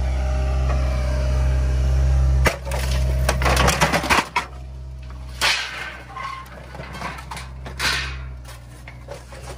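Hyundai 160 excavator running steadily, then the clatter and scrape of scrap metal and debris as its Bateman lifting magnet comes down on the trash and snaps metal pieces up against its face. A burst of rattling comes about two and a half seconds in, and single sharp clanks follow about three and five seconds later.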